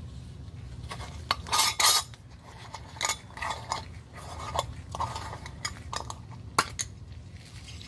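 Metal screw lid being twisted on a glass jar, grating and clicking against the jar's threads in a run of short scrapes, loudest between one and two seconds in.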